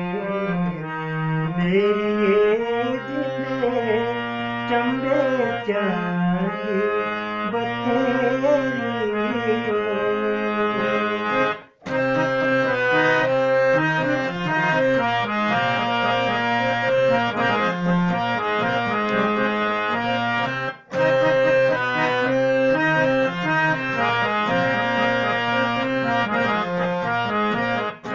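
Harmonium playing a folk tune, with a man singing over it for about the first ten seconds; then the harmonium plays on alone as an instrumental interlude. The sound cuts out briefly twice.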